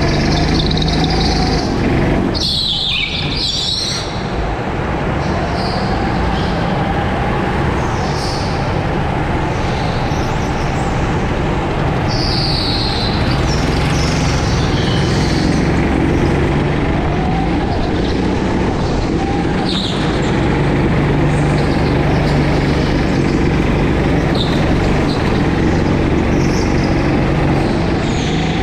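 Go-kart's small petrol engine running hard from the driver's seat, its pitch rising and falling as the kart accelerates and slows through the corners. Several short high squeals from the tyres sliding on the slick floor, the longest a few seconds in and another about halfway.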